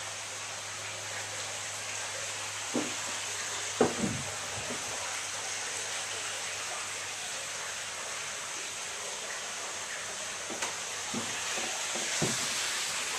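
A steady rushing hiss with a low hum that stops about three seconds in, and a few light knocks and clicks.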